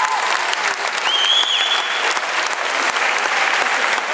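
Audience applauding steadily: dense, even hand clapping, with a short high tone rising and falling about a second in.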